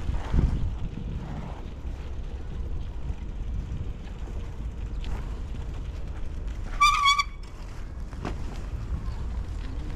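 Wind and road rumble on a handlebar- or body-mounted action camera while cycling. About seven seconds in comes a short, high squeal with a slightly wavering pitch, the loudest sound here.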